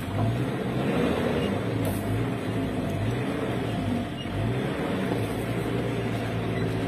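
Car engine running steadily at low speed with an even low hum, heard from inside the cabin.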